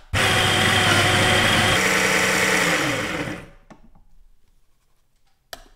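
Baratza Sette 270 coffee grinder grinding a dose of espresso beans with a loud, steady motor whir. After about two seconds the motor cuts off and its pitch falls as it spins down. A short click follows near the end.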